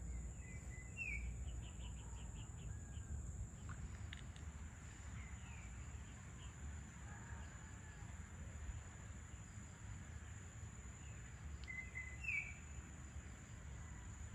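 Evening outdoor ambience with a bird chirping. It gives a short rising call about a second in, a quick run of short notes just after, and the same rising call again near the end. Under the calls run a steady high insect drone and a low rumble.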